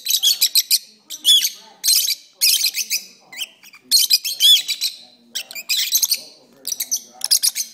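Pet lovebirds singing: fast, high-pitched squeaky twittering and chirps in dense bursts of about half a second, one after another with short gaps.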